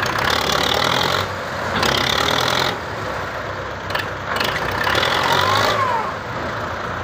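Belarus tractor's diesel engine revved hard in three surges of about a second each over a steady running note, straining to pull a fully loaded trolley.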